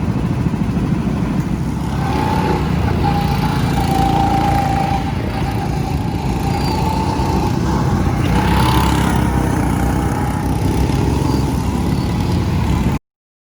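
Go-kart engine running steadily at speed, a continuous low rumble with a wavering whine over the middle stretch; the sound cuts off suddenly near the end.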